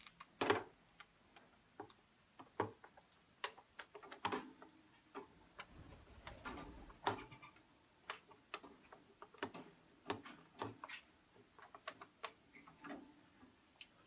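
Irregular light clicks and knocks, with a few short scrapes: a small wooden bird ladder dragged by a parrot's beak, bumping across plastic cage trays and against a larger wooden ladder.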